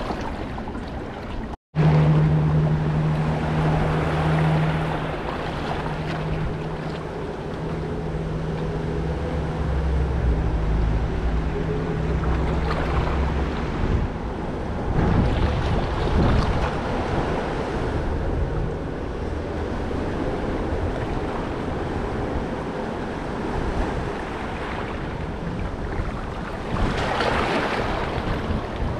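Wind and water noise, with a boat engine's low steady hum that fades away over the first half.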